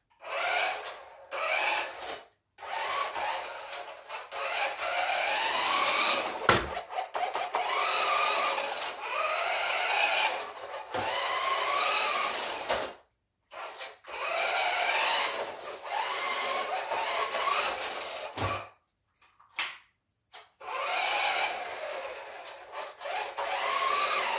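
Toy-grade radio-controlled Lightning McQueen car's small electric drive motor and gears whining in bursts, the pitch rising and falling as the car speeds up and slows, with short pauses between runs. A single sharp knock comes about six seconds in.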